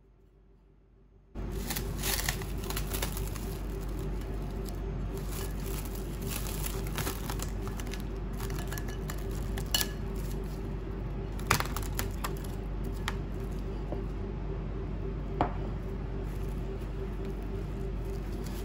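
Plastic cling wrap being pulled off, torn and stretched over a ceramic bowl, crinkling, with a few sharp clicks. A steady hum starts suddenly about a second in and carries on underneath.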